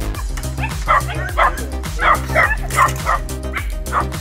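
Dogs barking in short sharp barks, about ten of them at two or three a second, over background music with a steady bass.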